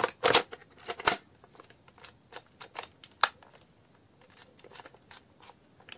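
Sharp plastic clicks and knocks as a battery pack is pushed onto and worked into the handle of a cordless drill, loudest in the first second and again about three seconds in. No motor runs: the rebuilt pack does not power the drill.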